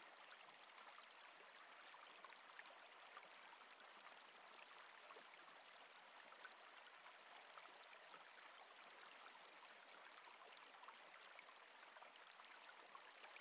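Faint, steady flow of a river or stream, a soft even rush with small splashes and trickles.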